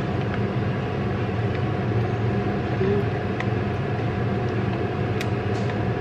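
Steady hum of a kitchen fan oven running, with a few faint ticks about halfway through and near the end.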